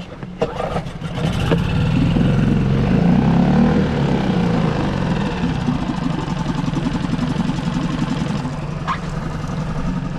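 Small outboard motor on an inflatable skiff starting about a second in, then running steadily at low speed.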